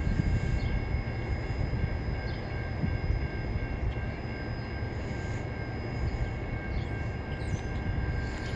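Freight train's loaded centerbeam flatcars rolling past close by: a steady rumble of steel wheels on rail, with a thin steady whine above it.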